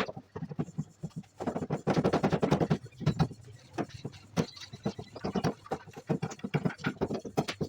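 A series of irregular sharp knocks and taps, with a denser, busier stretch about one and a half seconds in.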